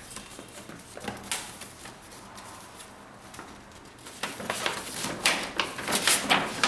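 A paper poster rustling and crackling as it is handled, with a light click about a second in and dense rustling from about four seconds on.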